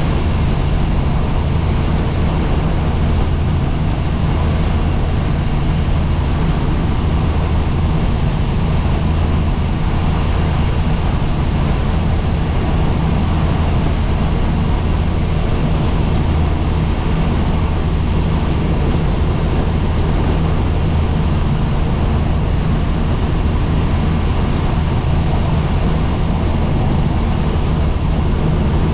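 Helicopter in flight: steady engine and rotor noise, a constant low drone over a wide rushing noise with no change in pitch or level.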